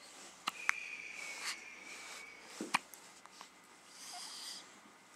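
Baby hiccuping: a few short, sharp, quiet hiccups, the clearest a little before the middle, between soft breaths.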